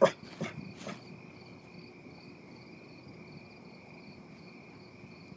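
Crickets chirping steadily on a night, a high continuous trill with a faster pulsing chirp above it. Right at the start there is one sharp loud sound, followed by two softer short sounds within the first second.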